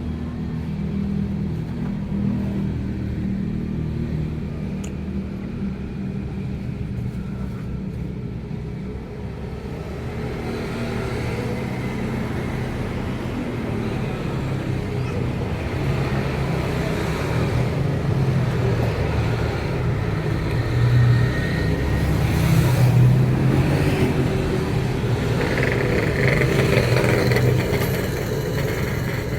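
Motor vehicle engines running with a steady low rumble, swelling louder in the second half.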